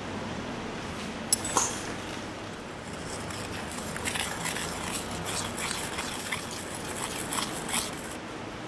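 Glass items clinking and tapping against hard surfaces over a steady factory background noise: one sharp clink a little over a second in, then a run of light scattered clinks from about four seconds on.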